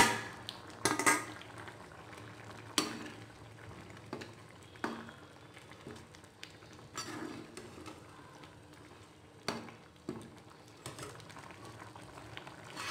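A metal spoon stirring vegetables into thick white sauce and penne in a pan. Irregular knocks and scrapes of the spoon against the pan, the loudest in the first few seconds.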